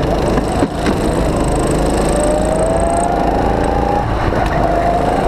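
Go-kart engine heard onboard, revving with a rising pitch as the kart accelerates, dropping about four seconds in and then climbing again, over a loud rough rumble. A sharp knock comes under a second in.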